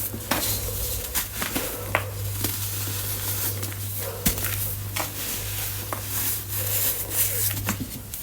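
Reformed baking soda chunks being crushed and crumbled, giving irregular crunches and crackles over a steady low hum.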